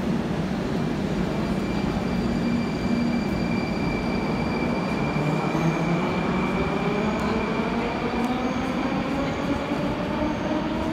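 Moscow metro train running at the station, a loud steady rumble with the traction motors' whine rising in pitch from about four seconds in as the train picks up speed.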